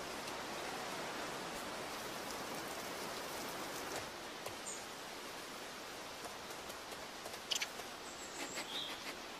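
Outdoor nature ambience: a steady soft hiss with a few faint, brief high bird chirps, and light rustles and clicks in the last couple of seconds.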